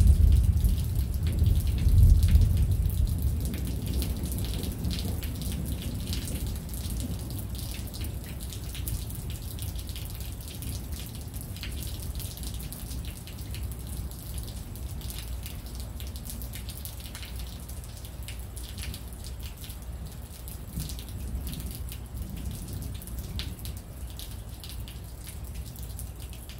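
Storm rain falling and dripping, with many scattered sharp drop ticks over a steady hiss. A deep rumble, loudest in the first two seconds, dies away over the next few seconds.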